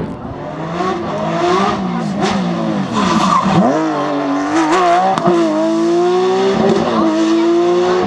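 Porsche 911 GT3 rally car's flat-six engine revving hard through gear changes. The pitch climbs, falls steeply a little over three seconds in as the car brakes and downshifts, then climbs again in steps through upshifts, with a few sharp cracks along the way.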